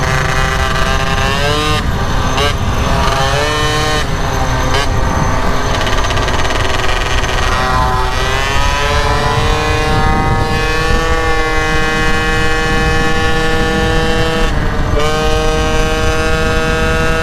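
Two-stroke moped engine running hard at road speed, briefly cut back several times in the first few seconds and again near the end, each time climbing back up; around halfway it climbs in pitch and then holds a steady high note. Low wind rumble on the microphone runs under it.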